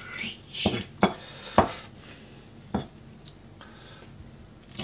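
Kitchen knife cutting the heads off small hatahata (sandfish) on a plastic cutting board: four sharp knocks of the blade against the board in the first three seconds, with quieter handling of the fish in between.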